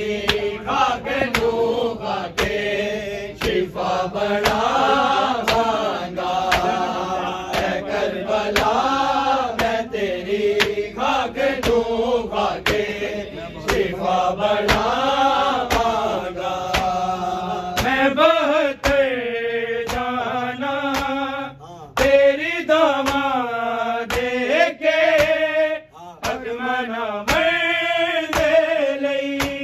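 Men's voices chanting a noha, a Shia lament for Karbala, in long wavering sung lines over a steady rhythm of sharp beats that are the mourners' chest-beating (matam).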